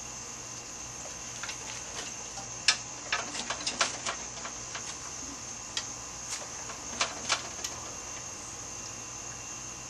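Irregular sharp clicks and knocks of hand tools and metal parts as work goes on in the engine bay of a Jeep Wrangler during engine removal, coming in a quick cluster a few seconds in and a couple more later, over a steady high hiss.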